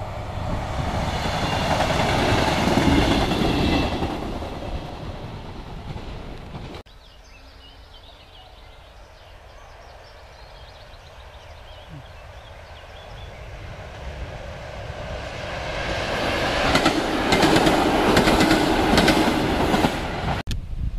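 Regional passenger trains passing on the line. A train rushes past loudly and is fading when the sound cuts off abruptly about seven seconds in. Then a second train approaches, swelling to a loud close pass with the clickety-clack of its wheels over the rail joints near the end.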